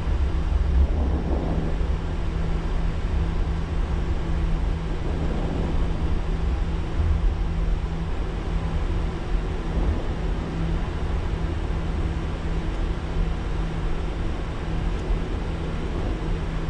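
Steady flight-deck noise of an Airbus A340 taxiing with its engines at idle: a continuous low rumble with a steady hum over it.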